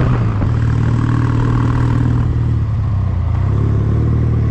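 Kawasaki W800's air-cooled parallel-twin engine running steadily as the motorcycle rides along.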